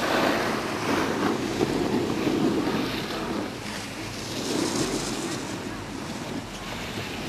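Wind buffeting the camcorder's microphone: a rushing noise that swells loudest in the first few seconds, eases, and swells again briefly after the middle.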